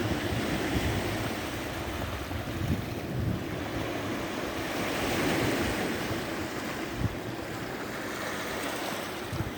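Sea waves breaking and washing on the shore, with one wash swelling about halfway through. Wind buffets the microphone with low thumps throughout.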